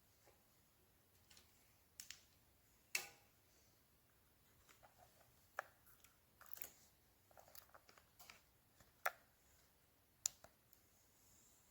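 Quiet room with a few sharp, scattered clicks and taps, about six distinct ones, plus faint rustling, like small plastic objects being handled.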